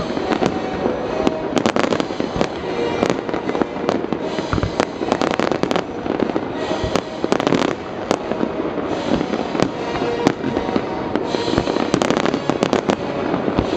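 Fireworks display: aerial shells bursting in quick succession, a dense, irregular run of bangs and crackling with no break.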